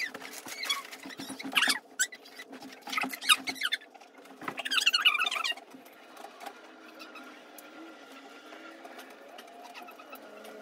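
A baby fussing: several short bursts of high, squeaky, wavering cries and squeals over the first five seconds or so, then only faint whimpers.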